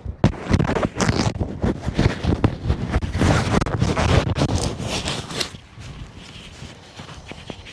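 Loud, irregular rustling and scraping right against the microphone, like clothing or gear being handled; it drops off about five and a half seconds in.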